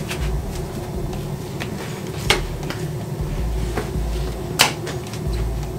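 Hands pulling and adjusting a silicone swim cap on the head: soft rubbing with a few short clicks, the two sharpest about two and a half and four and a half seconds in, over a low steady room hum.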